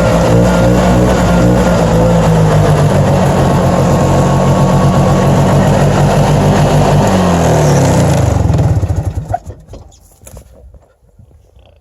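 An engine running steadily, then shut off about eight seconds in, its pitch sinking as it winds down to a stop.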